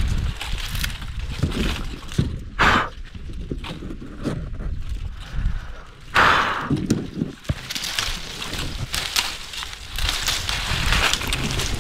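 Brush rustling and twigs snapping as leafy branches are pushed and broken, an irregular crackle with two louder bursts about two and a half and six seconds in.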